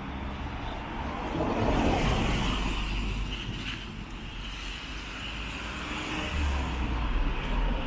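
Road traffic: a car passes, its engine and tyre noise loudest about two seconds in and then fading, and a low engine rumble swells again near the end.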